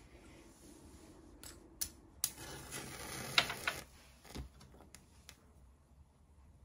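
A few light clicks and taps of small objects being handled, then a wooden match struck, a scraping rasp that flares alight with one sharp crackle.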